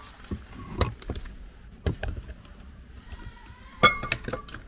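Wooden pestle knocking into a wooden mortar of plantain pieces: a few irregular dull thuds. About four seconds in comes the loudest knock, a clank with a brief metallic ring from the aluminium pot beside the mortar.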